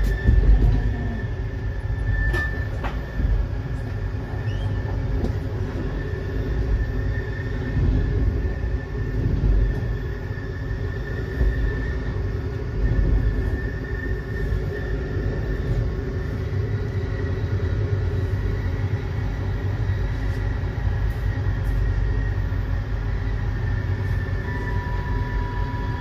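Passenger train carriage running on the rails, heard from inside: a steady rumble of wheels and track with a thin high whine over it. A louder rush about half a second in as another train passes on the next track, and a new steady tone near the end as the train slows into a station.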